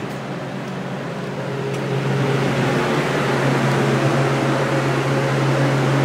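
Walk-in refrigerator's cooling unit running: a steady hum with a fan's rushing air, getting louder about two seconds in.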